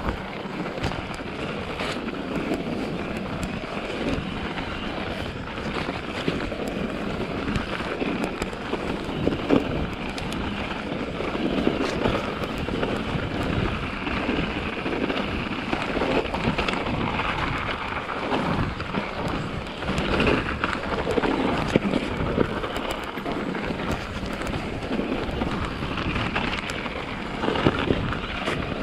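Mountain bike riding a snowy forest singletrack: tyres rolling over snow with frequent short knocks and rattles from the bike over bumps, and wind buffeting the microphone.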